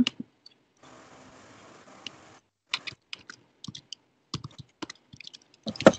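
Typing on a computer keyboard: irregular key clicks starting about three seconds in, after a faint steady hiss.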